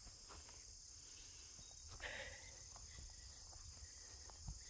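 Faint, steady, high-pitched chorus of insects such as crickets, with a low rumble underneath.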